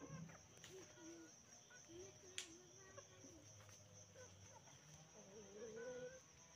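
Near silence with a faint, steady, high-pitched drone of crickets, faint wavering calls in the background, and a single soft click about two and a half seconds in.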